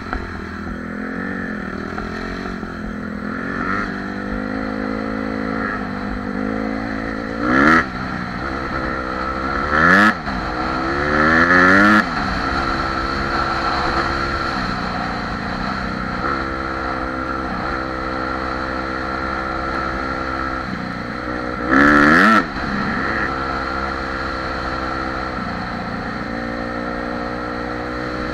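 Honda CRF four-stroke dirt bike engine running as it rides along a gravel trail. The throttle is opened hard several times and the pitch climbs steeply: three surges about a third of the way in and another about three-quarters through, these being the loudest moments.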